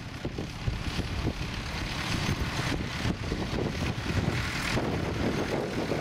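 Small vintage International tractor's engine running steadily under load as it pulls a mounted plough through the soil.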